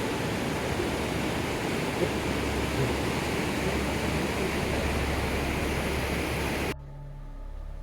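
Steady rushing water of a waterfall, an even roar with no breaks, which cuts off suddenly near the end and leaves only a faint low hum.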